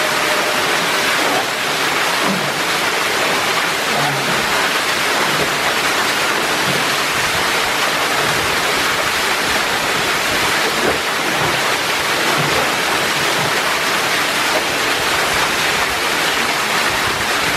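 Small waterfall pouring into a rock pool: a loud, steady rush of falling water.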